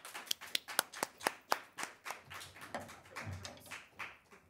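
A small audience clapping, loudest in the first couple of seconds and dying away by about three seconds in, with a low thump near the end.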